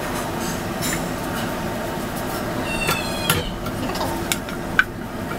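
Steady rushing background noise with a few clinks of metal cookware: one ringing clink about three seconds in, then a few sharper ticks.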